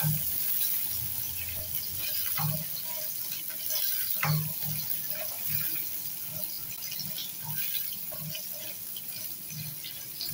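Carrot sticks sizzling in hot oil in a non-stick wok, with a steady frying hiss, and a spatula scraping and tapping against the pan now and then as they are stirred.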